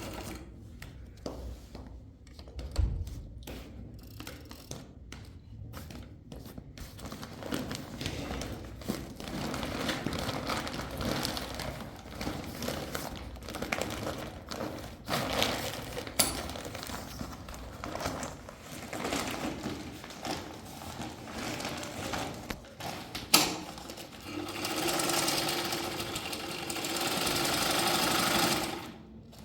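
Old sewing machine stitching in short, uneven runs, with sharp clicks and knocks from handling in between. It then runs steadily for about four seconds near the end and stops.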